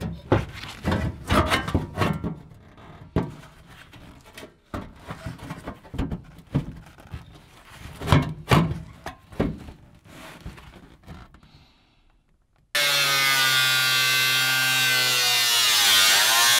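A new steel floor pan being pushed and shifted into place by gloved hands: irregular knocks and clatters of loose sheet metal. About three-quarters of the way through, after a brief hush, an angle grinder comes in abruptly, running steadily as it trims the sheet-metal edge, its pitch dipping briefly under load near the end.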